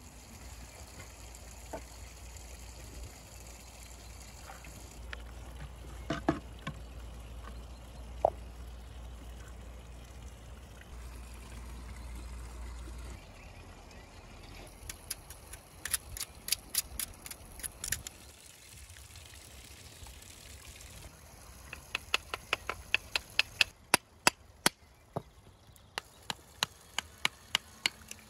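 Small clay jar being tapped with a knife to crack it open: runs of sharp taps, several a second, preceded by a few dull knocks and a low steady rumble.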